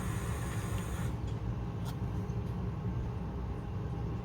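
Steady low background hum and rumble, with a high hiss that cuts off about a second in and a faint click around two seconds in.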